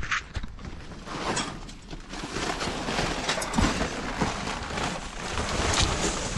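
Boxes and debris being shifted about inside a dumpster: continuous rustling and scraping with scattered clicks and knocks.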